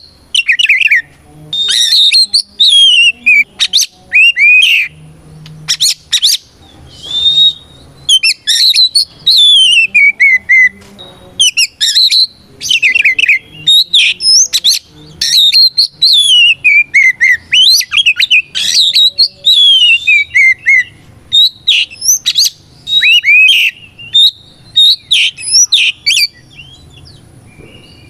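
Oriental magpie-robin (kacer) in full loud song: a rapid, varied run of clear whistled phrases, many of them falling sweeps, broken by brief pauses.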